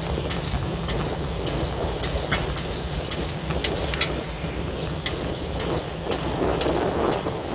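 Bicycle riding along cracked asphalt: steady wind rumble on the microphone and rolling tyre noise, with irregular sharp clicks and rattles several times a second.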